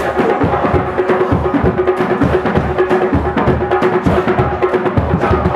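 Polynesian percussion, wooden slit drums over a bass drum, playing a fast, driving rhythm under a steady held tone.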